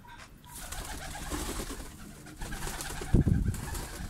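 Domestic pigeons cooing, with a flutter of wings as a pigeon takes flight and a loud low thump a little after three seconds in.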